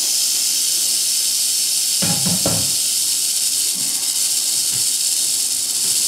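Mojave rattlesnake rattling its tail in a steady high buzz, the defensive warning of a stressed snake. A couple of knocks come about two seconds in.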